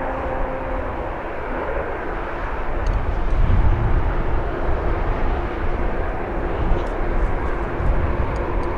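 Jet airliner's engines rumbling on takeoff, a steady roar with a deeper low rumble that swells about three seconds in and again near the end.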